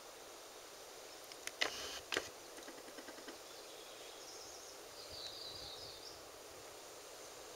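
Quiet forest ambience with two sharp snaps and a few smaller clicks a little under two seconds in. A short high bird song follows about five seconds in.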